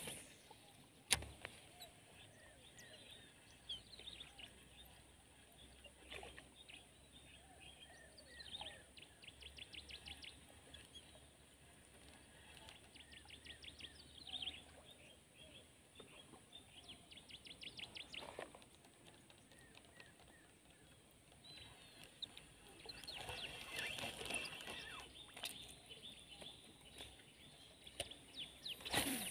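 Faint outdoor ambience of small birds chirping and trilling on and off, over a thin steady high tone, with one sharp click about a second in.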